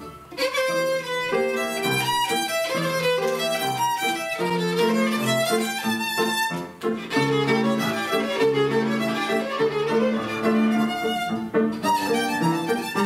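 Instrumental music: a violin playing a melody of quick, changing notes.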